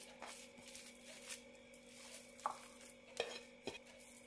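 Faint rustling and a handful of light taps as grated cassava is tipped from a glass plate into a glass bowl and crumbled by hand, over a low steady hum.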